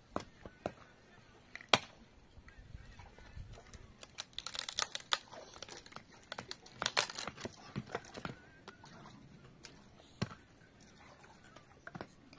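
Scattered sharp clicks and knocks, with rustling, crinkling noise in two clusters, around four to five seconds in and again about seven seconds in; a single sharp click under two seconds in is the loudest.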